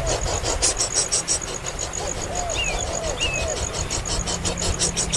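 Rapid, steady high-pitched chirping of about five to six pulses a second, with short, low, arching calls repeating every half second or so and two brief higher chirps near the middle.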